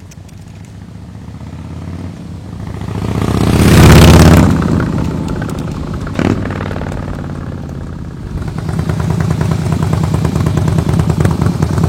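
Harley-Davidson Softail Slim S V-twin with a Kesstech ESM3 exhaust making a drive-by: the exhaust note swells to its loudest about four seconds in as the bike passes, then fades. A brief knock comes about six seconds in, and the engine grows louder again near the end.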